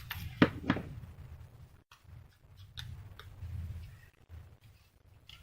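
Light clicks and taps of a small craft tool and paper pieces on a work surface, the sharpest pair about half a second in, with soft paper handling between.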